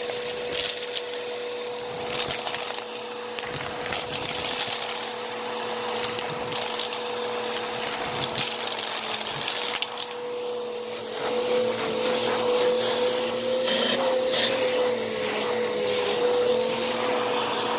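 Bissell PowerForce Helix upright vacuum running with a steady whine as its hose wand sucks up pennies from carpet, the coins clicking and rattling through the hose. From about two-thirds of the way through, the motor's pitch rises a little and wavers. Vacuuming the pennies is described as really loud: "the loudest thing in the world".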